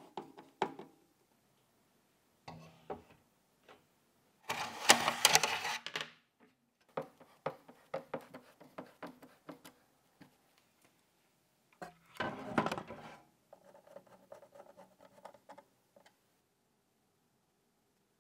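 PC parts being handled and fitted during a build: scattered clicks and taps, with two louder dense rustling bursts, one about five seconds in and one about twelve seconds in.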